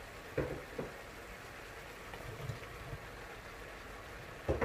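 Faint steady hiss of vegetables sautéing in a wok, with a few soft knocks, the loudest near the end.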